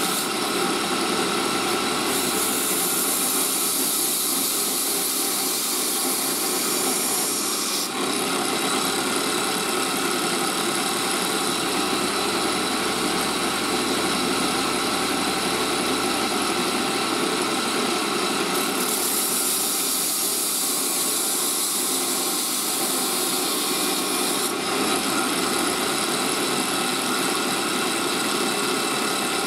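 Belt grinder running, with a red micarta knife handle pressed against the abrasive belt and ground: a steady grinding hiss that changes abruptly several times.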